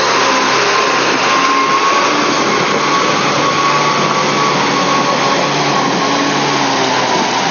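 Off-road 4x4's engine held at high revs as it ploughs through deep mud past the camera and away, its wheels churning the mud. A steady high whine that rises a little in the middle and eases back.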